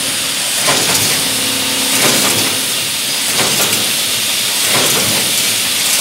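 Automatic pail-handle wire forming machine running, with a steady high hiss and a clack about every second and a half as its tooling cycles.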